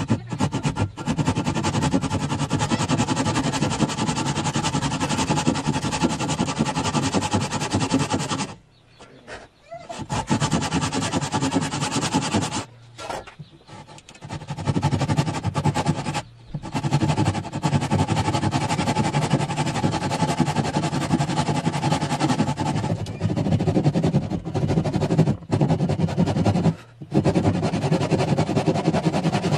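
Thin-bladed frame saw cutting through a pine bar, in runs of sawing broken by a few short pauses.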